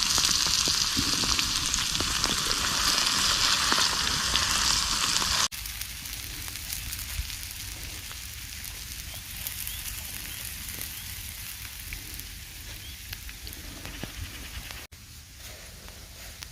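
Potatoes frying in oil in a crepe pan over a campfire: a steady sizzle that drops suddenly to a much quieter sizzle about five and a half seconds in.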